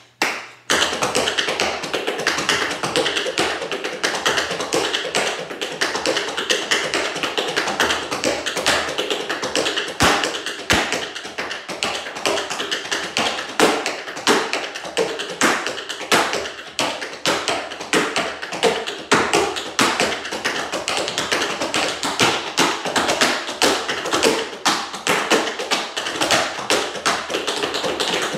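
Tap shoes striking a board in a fast, unaccompanied tap-dance routine: a dense, continuous run of sharp taps with no music, starting about a second in.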